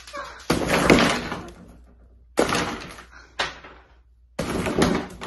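A gingerbread house being smashed apart: crunches of breaking gingerbread and pieces crashing onto a wooden tabletop, in four separate crashes, the loudest about a second in.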